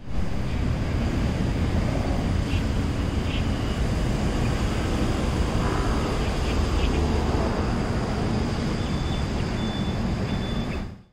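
Steady outdoor city background: continuous road traffic noise with low rumble, with a few faint high chirps about a third of the way in.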